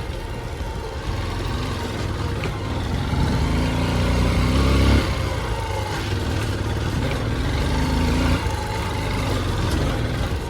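Motorcycle engine pulling uphill, its revs rising and dropping twice, sharply about five seconds in and again about eight seconds in.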